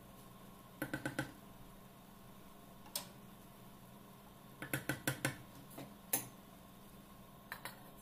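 Wooden spatula knocking and scraping against a stainless-steel pan while stirring cooked rice with vermicelli: short clicks and taps that come in small clusters, loudest in the middle.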